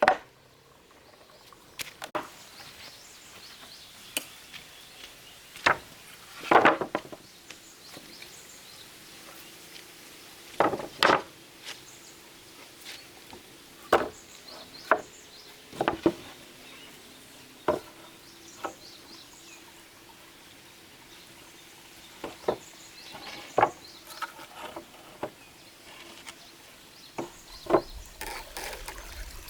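Irregular chopping or knocking strikes of a tool on wood, single blows a second to a few seconds apart, some in quick pairs. A faint steady hum sits under them through the middle.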